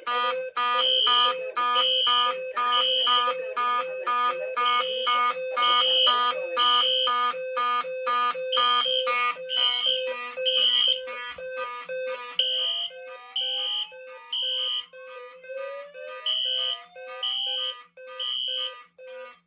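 Wheelock fire alarm horns sounding in general alarm: one horn pulses in march time, about two blasts a second, over high beeps in repeating groups of three (code-3 temporal pattern). About twelve seconds in, a voice-evac slow whoop joins, rising in pitch twice.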